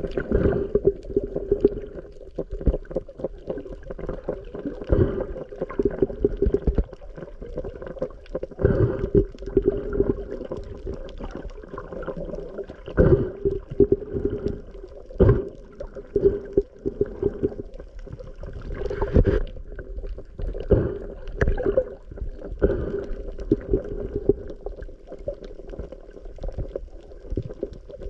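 Muffled underwater sound through a camera's waterproof housing: water sloshing and gurgling with irregular dull knocks, over a steady low hum.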